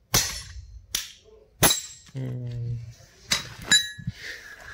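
Hammer blows on a steel chisel wedged between a combine harvester cutter motor's body and its end cover, driving the cover off: three sharp strikes in the first two seconds, then two more about three and a half seconds in with a short metallic ring. A brief voice sounds between the two groups.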